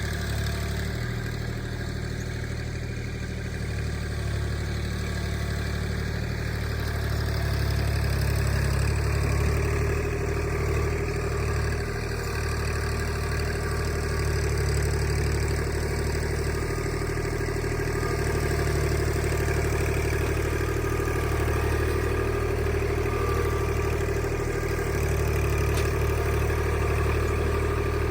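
Kubota tractor's diesel engine running steadily, a little louder from about seven seconds in.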